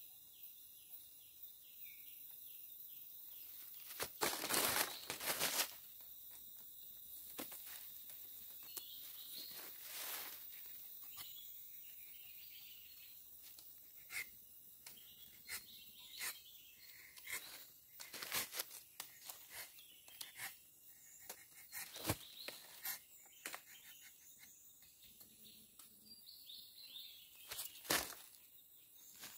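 Scraping and rustling in short bursts, the loudest about four to six seconds in: a rubber-tapping knife shaving bark off a rubber tree, and footsteps in dry leaf litter. Behind it, insects call steadily, pulsing in the first few seconds.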